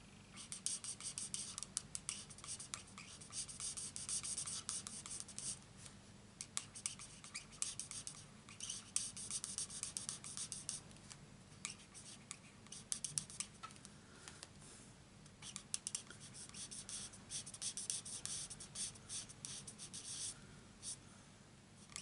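Felt tip of a Stampin' Blends alcohol marker (dark Mint Macaron) scratching over cardstock in quick, short colouring strokes. The strokes come in quiet runs, broken by a few brief pauses.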